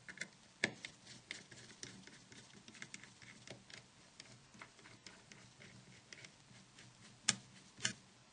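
Many small, irregular clicks and ticks of a size 6 Torx Plus screwdriver working the tiny screws out of a Nokia 9300i's frame, with two louder clicks near the end.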